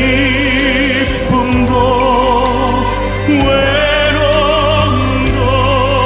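Background music: a slow song's melody with strong vibrato over a steady bass line.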